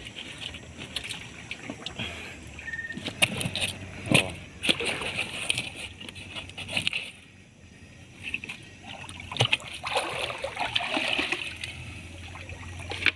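Wet fish being shifted and packed by hand into a styrofoam cooler: splashing and rustling, with scattered knocks against the box.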